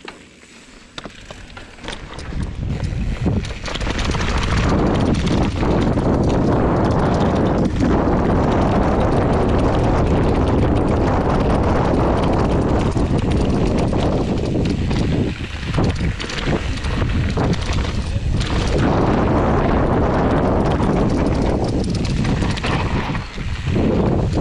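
Riding noise of a hardtail mountain bike descending a dirt singletrack: wind rushing over the camera microphone mixed with tyres rolling and rattling over dirt and leaves. It starts faint and builds to a loud, steady rush within the first few seconds as the bike picks up speed, easing briefly a couple of times.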